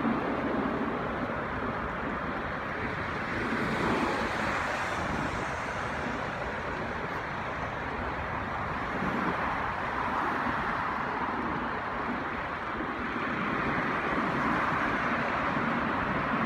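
Road traffic noise: cars passing on a city street, a steady wash of tyre and engine sound that swells three times as vehicles go by.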